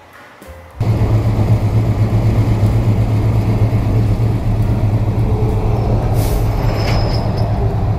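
Car engine running loudly and steadily with a deep low rumble, cutting in suddenly about a second in. A brief hiss and a short high tone come near the end.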